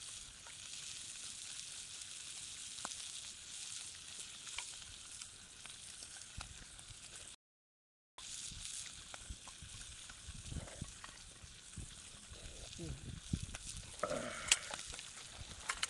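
Food sizzling in an iron skillet over a small wood-burning stove, with light crackles from the fire. The sound drops out for under a second about halfway, and a few knocks and clinks come near the end.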